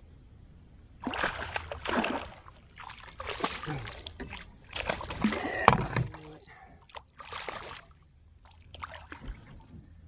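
Hooked catfish thrashing at the surface beside a kayak as it is netted: splashing in several irregular bursts, the sharpest a little past the middle.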